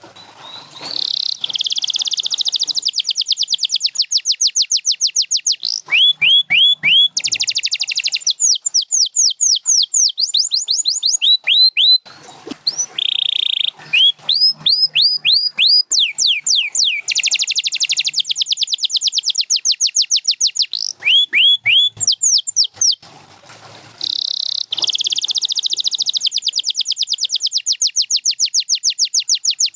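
Domestic canary singing a long song of fast rolling trills alternating with runs of quick, repeated falling notes, with short breaks about twelve seconds in and again about twenty-three seconds in.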